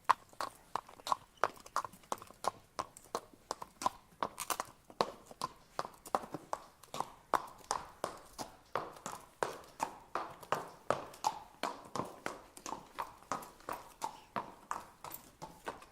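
Horse walking, its hooves striking the ground in a steady clip-clop of about three hoofbeats a second.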